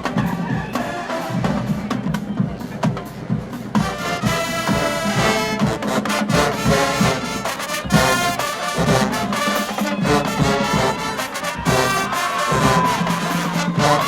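HBCU marching band playing: bass drums and low brass, joined about four seconds in by the full brass section, trumpets and trombones, playing loud.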